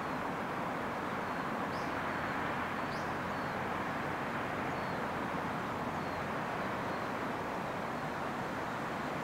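Steady outdoor background noise, an even hiss and low rumble with no build-up, with a few faint, short bird chirps over it.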